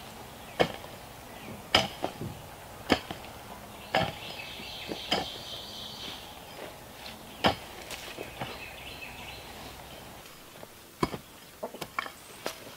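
A pick mattock striking into dry, packed dirt, one blow about every second, six blows in all, with birds calling faintly behind. Near the end a few quicker, lighter strikes into the soil.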